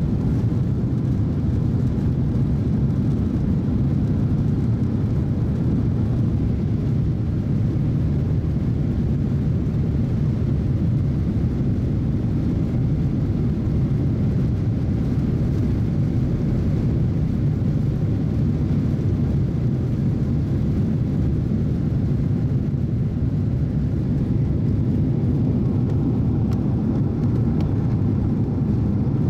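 Boeing 767's twin jet engines at takeoff thrust, heard from inside the passenger cabin during the takeoff roll and climb-out: a loud, steady, low-pitched noise that does not let up.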